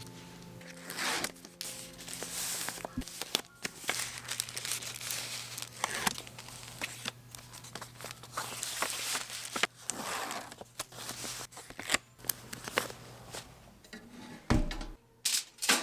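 Packaging being handled, with repeated crinkling and rustling and small clicks, over soft background music.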